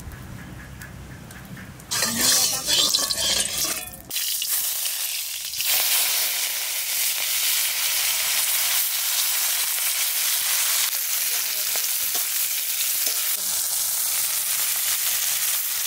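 Fresh amaranth (data shak) greens frying in hot mustard oil in an iron kadai. A loud, steady sizzle starts suddenly about two seconds in and keeps going.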